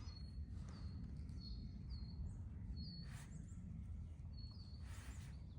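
A small bird giving a run of short, high, repeated chirps, over a steady low rumble of outdoor background noise, with a couple of brief rustles about three and five seconds in.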